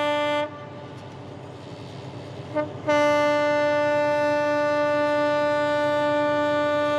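Horn of an Alstom diesel-electric locomotive sounding on one steady pitch. A blast ends about half a second in, a brief toot follows a couple of seconds later, and then a long steady blast starts about three seconds in.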